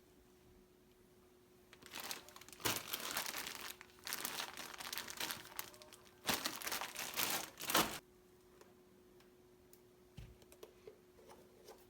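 Crinkling of packaging being handled, in three spells of rustling over about six seconds, followed by a few light clicks.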